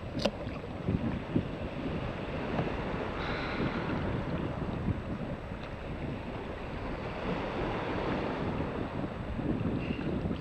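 Wind buffeting the microphone over small waves washing in the shallows, a steady rushing noise.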